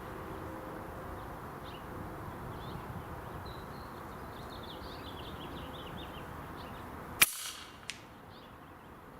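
Steady wind noise with small birds chirping, then a single sharp air rifle shot about seven seconds in, followed by a fainter click under a second later.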